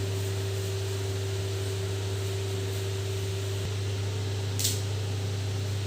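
Steady low hum with an even hiss, and one brief soft click about four and a half seconds in.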